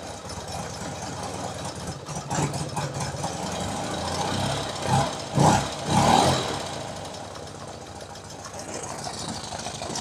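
BMW R90/6's air-cooled flat-twin boxer engine running warm at idle with a persistent tick from one cylinder's top end. The tick survived a top end refresh, and the owner doesn't think it comes from the rockers or valve train. The engine gets louder three times in quick succession about five to six seconds in, then settles back.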